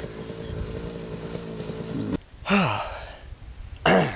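A man panting hard after cycling up a steep, loose hill: two loud, heavy breaths out, each falling in pitch, about a second and a half apart. Before them a steady humming drone with a low rumble stops abruptly about two seconds in.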